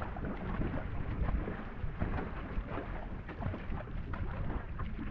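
Water rushing and splashing along the hull of a two-person marathon racing canoe under way, with paddle strokes dipping in, and wind buffeting the microphone with a low rumble.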